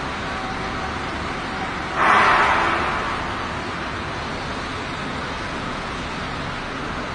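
Steady hiss of an old, noisy recording, with one sudden rush of noise about two seconds in that fades away over about a second.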